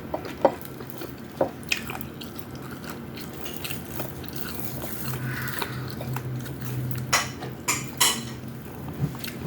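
A person eating close to the microphone: chewing and biting mouth sounds, with several sharp clicks scattered through, some close together.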